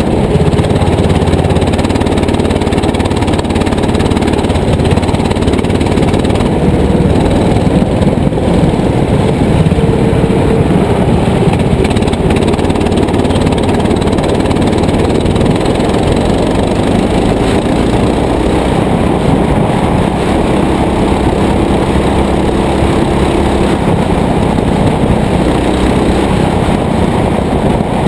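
Go-kart engine running hard at race speed, heard from on board the kart, loud and steady, with its note drifting up and down as the throttle changes through the corners.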